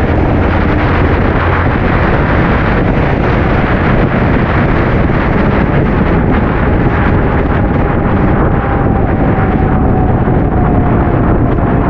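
Heavy wind buffeting on the microphone of a moving motorcycle, a loud steady rush with engine and road noise underneath. A faint tone slowly drops in pitch in the second half.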